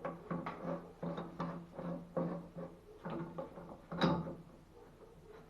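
Metal valve parts clicking and knocking as they are handled and fitted by hand, with one sharp knock about four seconds in.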